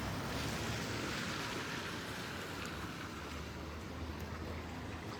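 Steady rush of running floodwater, an even hiss with no distinct strikes.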